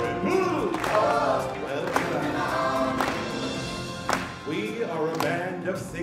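A choir of voices singing with a drum struck about once a second.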